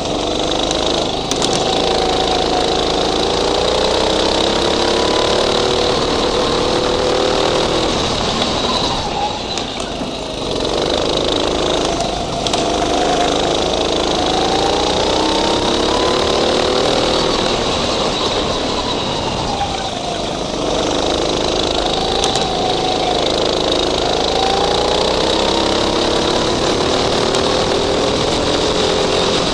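Go-kart engine heard close up from on board, revving up along the straights and dropping back for the corners: three long climbs in pitch, with the revs falling about a third of the way in and again about two thirds of the way in.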